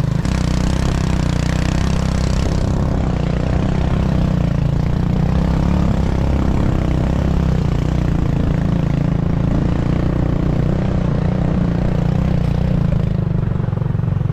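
Motorcycle engine running steadily at an even pace while riding.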